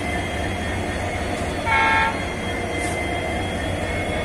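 WDP4 diesel locomotive idling with a steady low drone, and a short toot of its horn, one held note about half a second long, a little under two seconds in.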